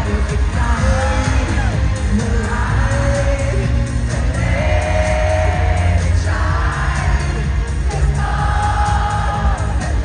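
Live pop concert music through an arena sound system: a woman singing sustained phrases over a heavy, steady bass.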